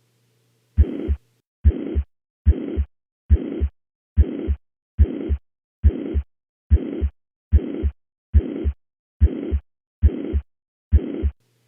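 Heart heard through a stethoscope at the apex, beating steadily at about seventy a minute, thirteen beats in all. Each beat has a high-pitched, uniform (holosystolic) murmur filling the whole gap between the first and second heart sounds, the murmur of mitral regurgitation.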